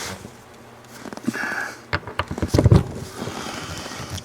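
Scattered light knocks, clicks and rustling as someone handles tools and moves about inside a pickup's cab, with a cluster of low thumps and clicks about two to three seconds in.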